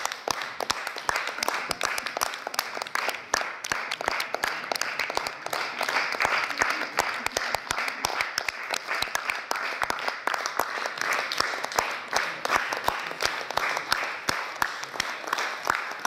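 Audience applauding: many hands clapping densely and steadily.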